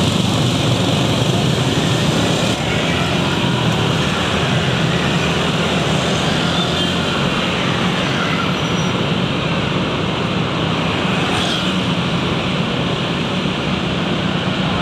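Steady engine hum and road noise of a car driving, heard from inside its cabin, with motorbike traffic around it. The level dips slightly a couple of seconds in.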